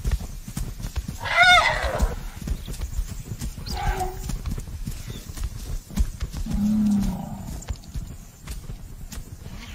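African elephant herd on the move: heavy footfalls and scuffing in dry dust, with a short, high trumpeting call about a second and a half in, a fainter call around four seconds, and a brief low call near seven seconds.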